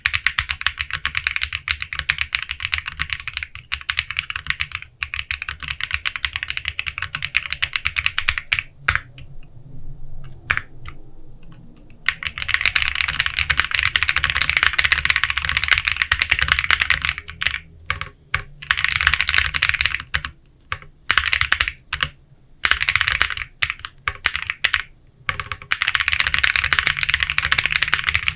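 Fast typing on a Matrix 6XV 3.0 Corsa custom mechanical keyboard with unlubricated Bsun RAW linear switches and PBT keycaps: dense runs of key clacks. About nine seconds in the typing stops for roughly three seconds, with only a few single key presses, and there are shorter breaks later on.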